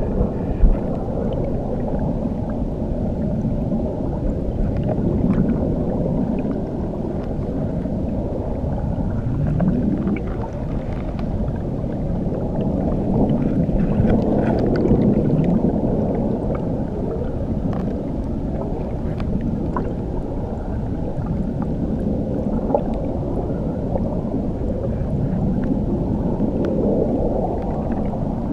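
Muffled rushing of water heard underwater beneath a waterfall: a dull, steady rumble with slow swells and gliding rises and falls, and faint ticks of bubbles above it.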